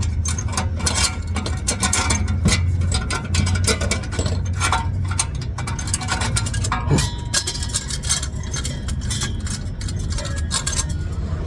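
Irregular metallic clicks, taps and knocks as a muffler and exhaust pipe are worked loose and slid out by hand, over a steady low hum.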